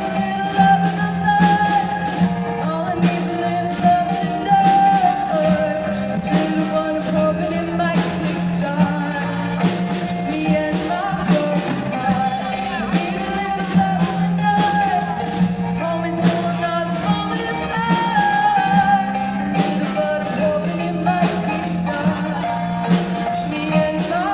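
Rock band playing live with a lead singer: a sung melody over a steady bass line and drums.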